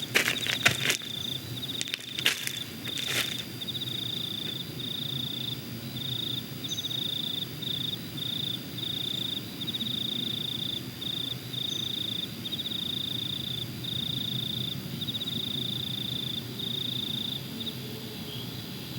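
A cricket chirping steadily in repeated trills, over a low background hum. A few sharp clicks or taps fall in the first three seconds.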